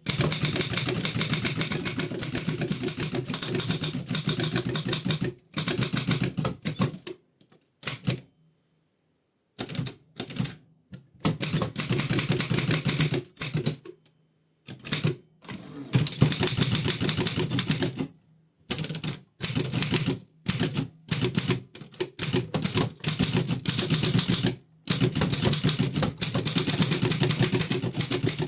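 1933 Continental Standard manual typewriter being typed on: fast runs of key strikes, several seconds each, broken by short pauses.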